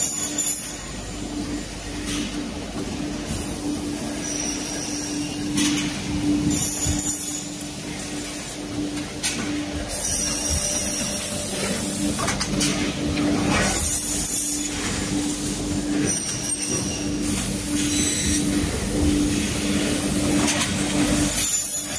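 Aluminium solar-frame production machinery running: a steady motor hum, with short bursts of compressed-air hiss from the pneumatic cylinders every few seconds.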